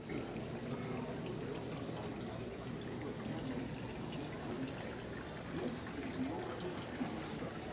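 Steady, continuous rushing noise, like running water or wind, with faint distant voices mixed in.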